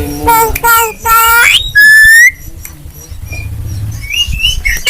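Javan myna (jalak kebo) calling with odd, voice-like notes. About two seconds in comes one loud whistle that rises slightly, and short higher whistled notes follow near the end.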